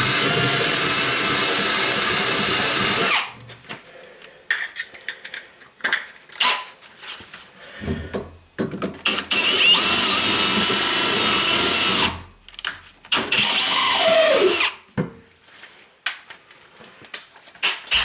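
A power drill spinning a pipe-cleaning brush on old copper pipe to clean it before soldering. It runs in three steady bursts: about three seconds at the start, two to three seconds around the middle, and a shorter one that winds down with a falling whine. Clicks and handling knocks come between the bursts.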